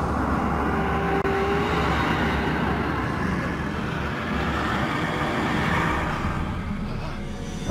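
Dramatic TV sound effect for a werewolf transformation: a dense, steady rumbling rush of noise over low eerie music, thinning out near the end.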